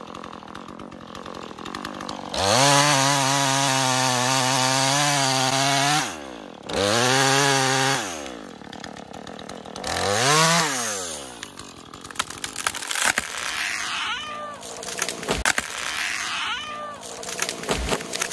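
Gas chainsaw cutting into a maple trunk at full throttle, easing off and revving again twice. After it drops back, a run of sharp cracks and snaps and two heavy thuds as the trunk tears and the tree falls.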